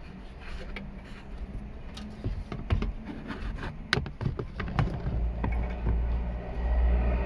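Hands pushing wiring and connectors back into the plastic dashboard cavity of a Mazda CX-9, making scattered plastic clicks and knocks. A low rumble runs through the last couple of seconds.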